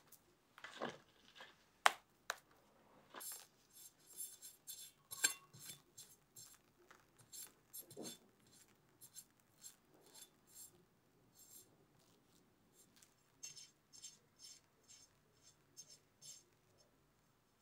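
Metal offset spatula spreading and smoothing whipped cream over a crepe layer: quiet, quick scraping strokes in runs, with a few sharp clicks near the start.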